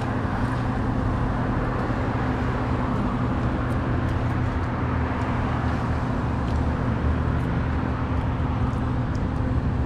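Steady motor-vehicle noise: a continuous low hum with an even rushing haze over it.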